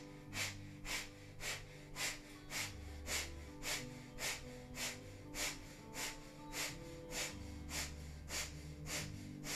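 Breath of fire, the kundalini yoga breath: rapid, forceful exhalations through the nose, panting like a dog, about two sharp breaths a second in a steady rhythm. Soft background music with held tones plays underneath.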